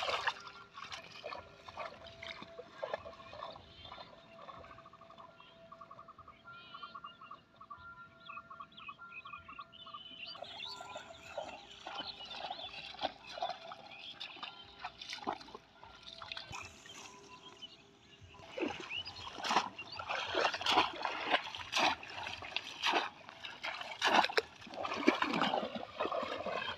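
Shallow muddy water sloshing and splashing around wading legs and a bamboo polo fish trap. Quiet at first, it becomes louder, busier splashing in the last third as the trap is plunged into the water.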